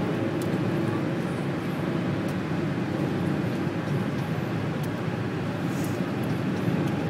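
Steady road and engine drone inside a moving car's cabin at highway speed.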